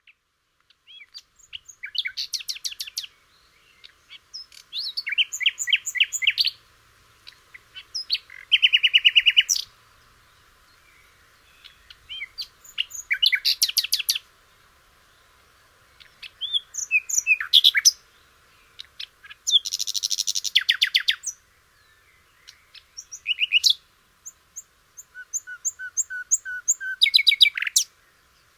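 Recorded bird songs and calls from different species, played one after another. About eight short bursts of chirps and trills, each with a different pattern, separated by brief quiet gaps.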